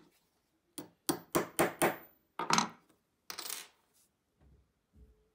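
Small hammer tapping a steel drift about eight times in quick succession, sharp ringing metallic taps, driving a plug of lead wire into a piano hammerhead to add weight. A few faint knocks near the end.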